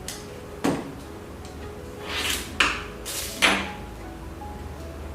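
Handling noises from the hot-stamping machine and its parts: four sharp knocks and clacks with two short scraping rustles in between, the loudest knocks a little past the middle.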